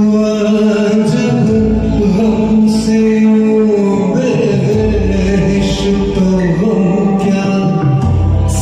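Instrumental interlude of a ghazal accompaniment: long held, gliding melody notes over a pulsing bass line.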